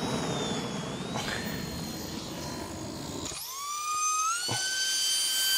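A steady hiss with a faint high whine, then about three and a half seconds in a high whine with several overtones rises in pitch and holds steady: the electric starter motor of a homemade miniature jet engine spinning its shaft up.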